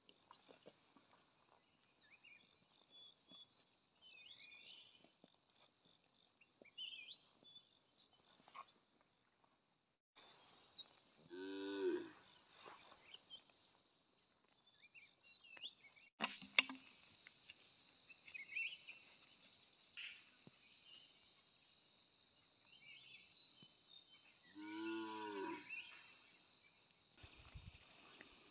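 Cattle mooing twice, about thirteen seconds apart, each call a low drawn-out moo lasting one to one and a half seconds.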